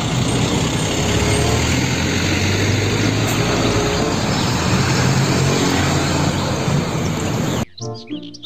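Heavy diesel dump truck driving past close by: its engine running under a loud wash of road and wind noise. It cuts off abruptly near the end, giving way to children's music with bird chirps.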